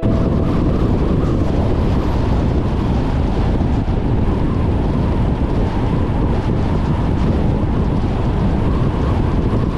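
Steady rumble of wind and road noise from a car being driven.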